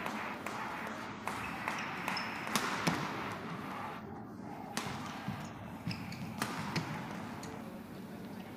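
Indoor badminton arena ambience: a steady crowd murmur, broken by scattered sharp taps and a couple of short high squeaks.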